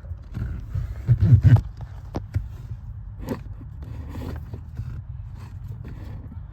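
A wiring harness being pulled through, scraping and rustling, with scattered light clicks and a louder bump about a second and a half in.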